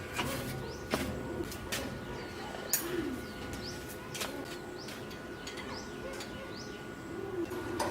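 Birds calling: a couple of low coos and small high chirps, with several sharp clicks or taps scattered through.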